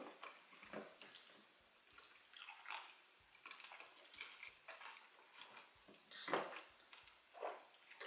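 Faint, wet eating sounds of plantain porridge eaten by hand: a handful of soft squelches and smacks from fingers working the food and mouth chewing, the clearest a little past six seconds in.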